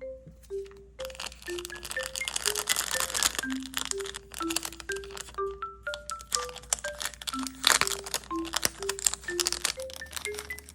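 Paper crinkling and crackling as a handmade paper blind bag is handled. It starts about a second in, is densest in the middle with a sharp crackle near the end, then eases off. Under it runs a gentle mallet-percussion melody.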